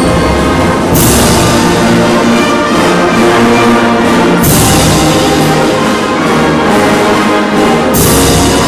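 Full wind band of woodwinds, brass and percussion playing a loud, sustained passage, with three bright crashing accents about one, four and a half and eight seconds in.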